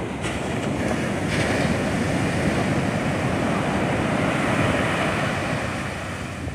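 Sea surf breaking and washing up a sandy beach, a steady rushing that swells and then eases off near the end.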